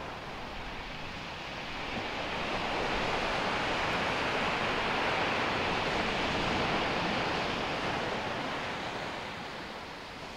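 Ocean surf washing onto a beach, a steady rushing noise that swells to its loudest around the middle and eases off near the end.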